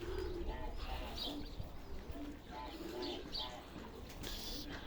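Domestic pigeons cooing, a run of short low coos one after another, with a few higher chirps and a low rumble of wind on the microphone.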